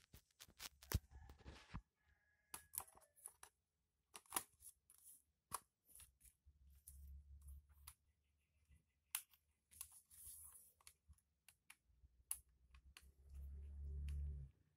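Faint scattered clicks and scrapes of fingers working at a netbook's opened plastic case and its laptop hard disk, with a low dull rumble for about a second near the end.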